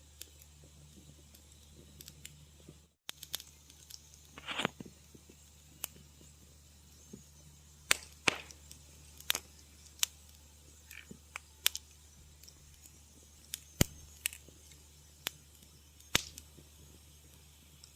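Wood fire crackling in a fireplace: irregular sharp pops and snaps, some louder than others, over a low steady hum, with a brief dropout about three seconds in.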